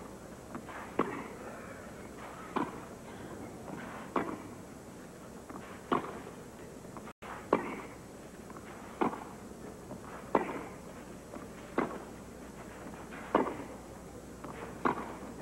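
Tennis baseline rally on clay: the ball struck back and forth by rackets, a sharp pock about every one and a half seconds, about ten strokes in all.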